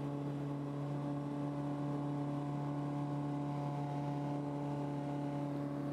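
Single-engine light plane's piston engine and propeller droning steadily at one pitch during takeoff and climb-out, heard from inside the cabin.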